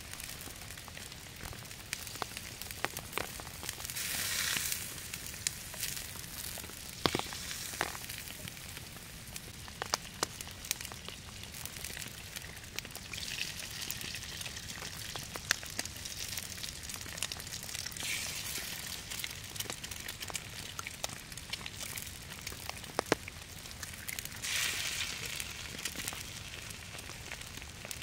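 Butter and an egg sizzling in a metal frying pan set on campfire embers, the sizzle swelling now and then, with scattered sharp crackles and pops from the burning logs.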